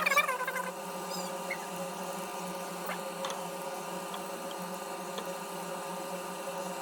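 Microwave oven running with a steady hum while butter and sugar melt for a popcorn sauce. A brief high, wavering squeak at the very start.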